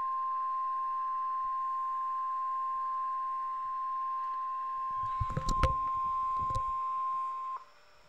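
NOAA Weather Radio 1050 Hz warning alarm tone, a single steady pure tone heard through a computer's speakers, cutting off abruptly near the end. It marks an alert broadcast, here a severe thunderstorm warning. Several low thumps come in over the tone in its last couple of seconds.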